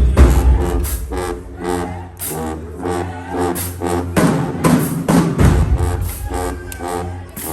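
Marching band playing: short, rhythmic brass notes over drums, with a heavy low bass line.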